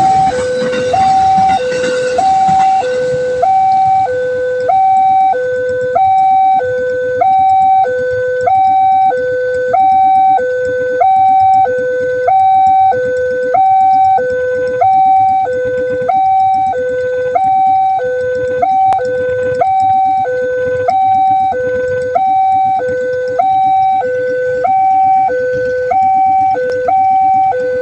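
Railway level-crossing warning siren sounding a steady two-tone hi-lo alarm, about one cycle every second and a quarter. The rush of a passing train dies away over the first few seconds.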